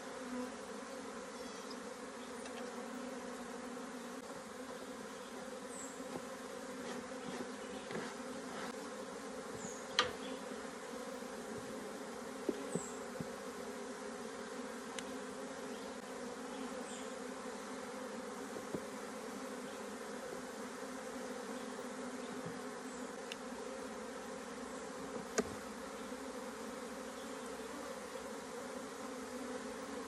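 A mass of honeybees humming steadily over an opened hive box full of bee-covered frames. A few sharp clicks stand out, the loudest about a third of the way in and again near the end.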